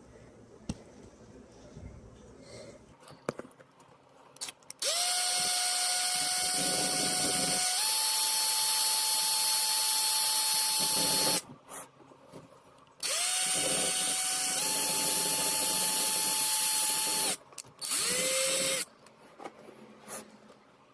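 Electric drill running in three bursts while drilling holes into the door's metal seal tabs. The first two bursts last several seconds each, and the motor's whine steps up slightly in pitch partway through each. A brief third burst comes near the end.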